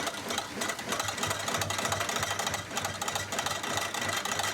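Water-driven flour mill running: a dense, steady mechanical clatter of the mill's machinery, with a low thud repeating about three times a second.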